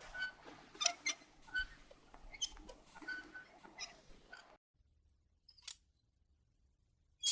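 Metal joints of a swinging lantern creaking: a run of short, irregular squeaks that cuts off suddenly about four and a half seconds in. Two more single squeaks follow, the louder one at the very end.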